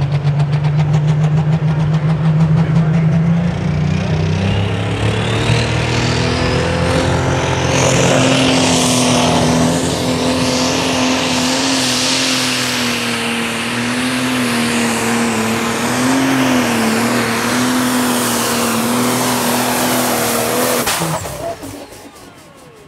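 Pro Stock turbo-diesel pulling tractor running under full load down the pulling track, its engine holding a steady, slightly wavering note with a turbo whistle rising in pitch over the first several seconds. The engine sound drops away sharply about 21 seconds in, as the pull ends.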